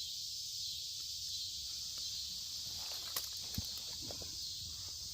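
Steady high-pitched insect chorus, with a few faint clicks and rustles of close handling.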